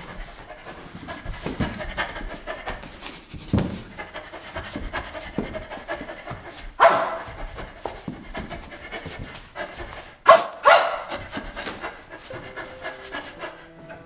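A man imitating a dog: rapid, breathy panting with three louder bark-like calls in the second half. Music with held notes starts near the end.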